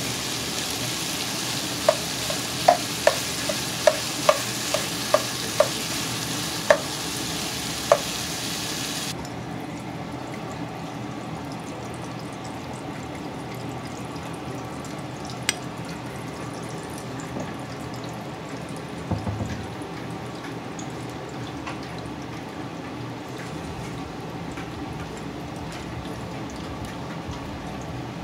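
Diced vegetables sizzling in a pot while a metal can of peas is knocked against the rim about ten times in quick succession to shake the peas out. Then, from about nine seconds in, a quieter steady hiss with a few faint ticks as oil heats in the empty pot on the gas burner.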